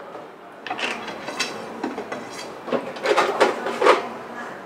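Irregular clicks and knocks of handling as a wooden cue shaft is freed and pulled out of a small cue lathe, clattering most thickly about three seconds in.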